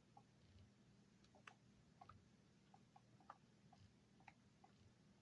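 Near silence with faint, scattered small clicks and ticks, two or three a second: hands and a tool handling a glued-in, broken laptop LCD panel.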